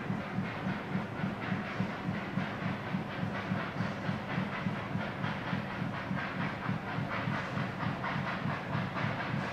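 Narrow-gauge steam train running, with a steady rhythmic beat about twice a second over a hiss.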